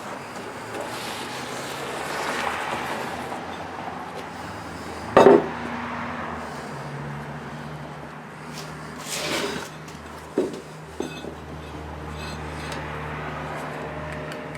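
Metal clanking and clinking from handling tools and parts, with one sharp clank about five seconds in and a few lighter clicks later, between soft rustling.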